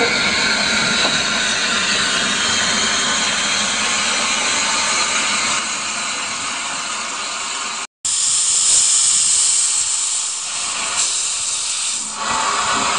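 Bagnall 0-4-0 saddle tank steam locomotive hissing loudly with steam escaping. The sound cuts out for a moment about eight seconds in, and after that the hiss is higher and harsher, from steam blowing out of the open cylinder drain cocks.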